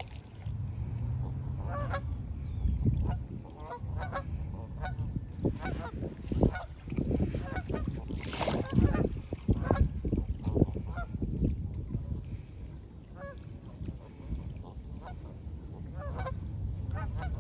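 Flock of Canada geese on the water honking, many short calls scattered throughout, over a steady low rumble.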